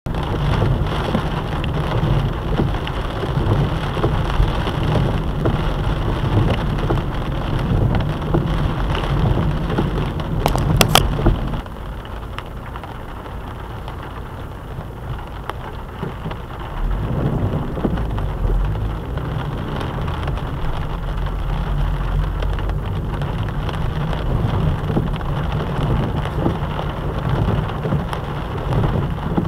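A car driving in rain, heard from inside the cabin: steady hiss of rain and wet tyres on the road over a heavy low rumble. A couple of sharp clicks come about a third of the way in, after which the noise drops quieter for several seconds and then rises again.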